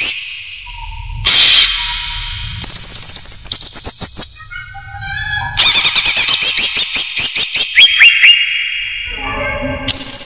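Green leafbird (cucak ijo) calling, the lure call used to draw in wild leafbirds: rapid runs of sharp, downward-sweeping chirps in two long bursts, with a short harsh buzz about a second and a half in.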